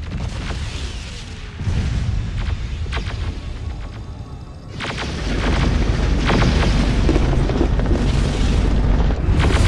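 Battle sound effects from a film's future-war scene: booming explosions and a deep rumble layered over music, growing louder about five seconds in.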